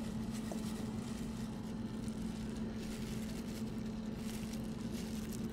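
Steady low hum under a faint even hiss: background room noise with no distinct handling sounds.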